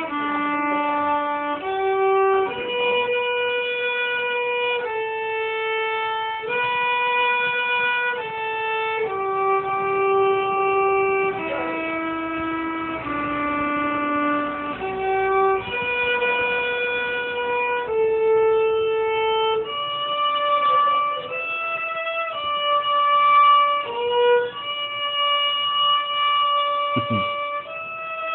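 A violin playing a slow solo melody, one held note after another, each lasting about a second or two.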